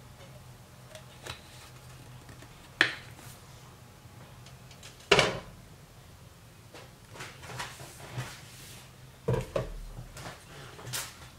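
Kitchen handling knocks and clatters: a sharp knock just under three seconds in, a louder one about five seconds in, then a run of lighter taps and clinks near the end, over a faint steady low hum.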